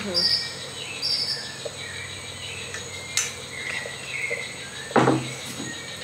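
Insects trilling in short, high bursts over a steady high whine, with light clinks of metal spoons; a sharp click about three seconds in and a short thump about five seconds in.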